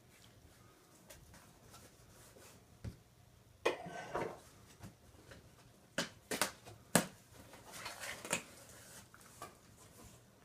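A knife cutting along the taped seams of a cardboard box, with scattered scrapes, rips and sharp clicks as the blade and flaps are worked. The busiest stretch runs from about six to eight and a half seconds in.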